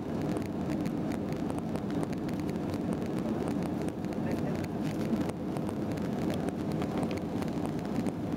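Steady cabin noise inside an Airbus A321-200 during takeoff: a constant rumble from the jet engines and the airflow, with faint ticks and rattles from the cabin.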